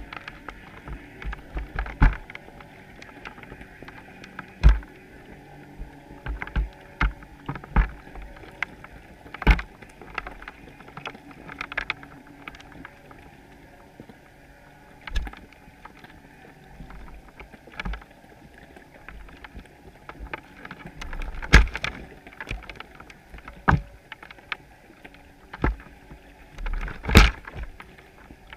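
Muffled knocks and clicks on an underwater camera rig in its waterproof housing, irregular and coming every second or two, some in quick little runs, each with a low thump, over a faint steady underwater rumble. The loudest knocks come about three-quarters of the way through and near the end.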